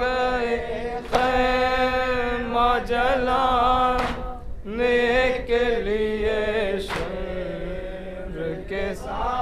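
A male reciter chanting an Urdu noha, a Shia Muharram lament, unaccompanied, in long drawn-out melodic phrases, with a brief break about four seconds in. A few sharp slaps of chest-beating (matam) cut through the singing.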